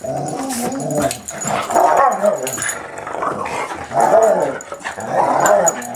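A Boston Terrier puppy and a Labrador retriever growling at each other while play-fighting, in repeated rising and falling surges about 1, 2, 4 and 5 seconds in.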